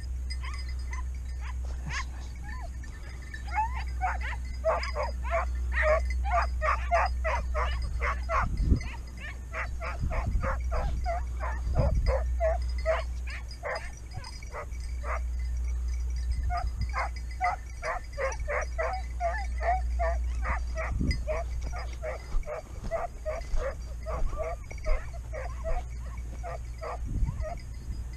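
Hunting hounds barking in fast, steady runs of about three to four barks a second: the baying of dogs working a hare's trail. The barking breaks off briefly about halfway and then starts again, over a low steady rumble.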